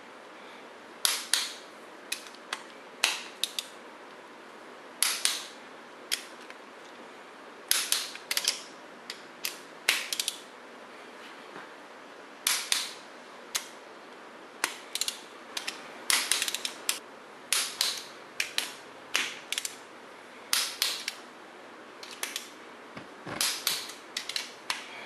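A 3/8-inch torque wrench working the cylinder head bolts: sharp clicks and short quick runs of clicks from the ratchet and the wrench, coming in uneven clusters every second or two. This is the second torque step, bringing the head bolts from 30 up to 50 ft-lb in sequence.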